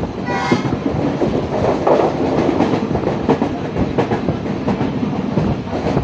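Passenger train running at speed, heard from aboard: a steady rumble with wheels clattering over the rail joints.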